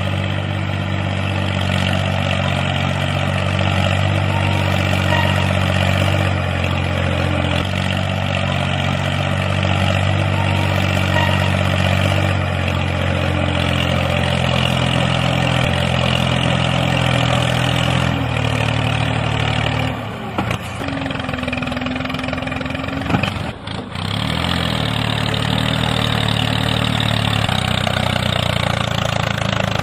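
Small engine running steadily with a low, even drone: the engine sound of a miniature walk-behind tractor model. It dips and changes briefly twice, about two-thirds of the way through.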